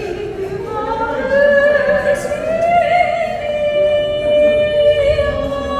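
A singing voice holding long notes that glide slowly upward, then hold steady with a slight waver.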